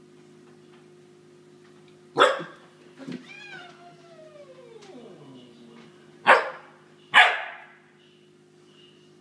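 Akita puppy barking at a cat: three sharp barks and a softer one, with a long whine falling in pitch between the second and third.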